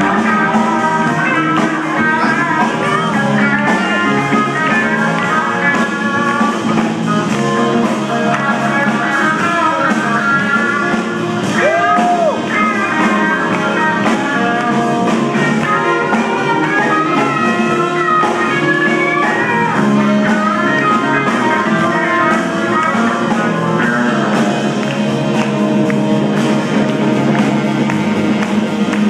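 Live small band playing: an electric guitar solo through an amplifier over a drum kit, with a note bent upward and back about twelve seconds in.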